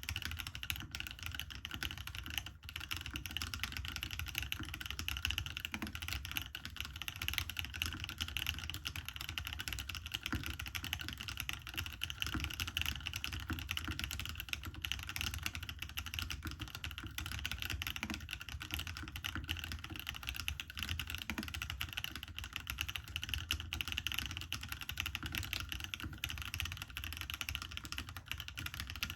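Continuous typing on a custom mechanical keyboard with Akko POM Pink switches lubed with Krytox 105 in an aluminium plate: a fast, steady run of keystrokes with only a brief pause about two and a half seconds in.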